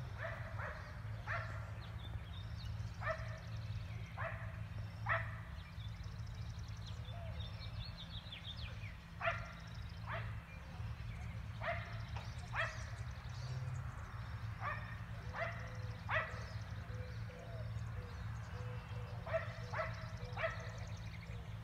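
Dogs barking on and off without let-up: single and paired barks every second or two, over a steady low rumble.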